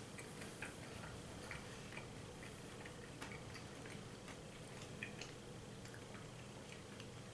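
Faint, irregular crunchy clicks of chewing on chocolate-covered crickets, over a low steady hum.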